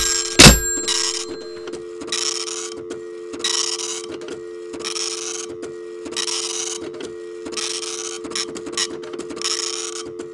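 Telephone line sounds after two loud clicks at the start: a steady low hum of tones, like a dial tone, with a hiss that comes and goes about once every second and a bit, mixed with small ticks.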